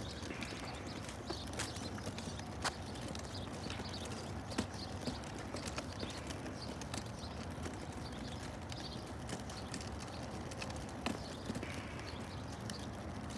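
Footsteps of a person walking on pavement, a light irregular tapping over steady outdoor background noise, with a few sharper clicks.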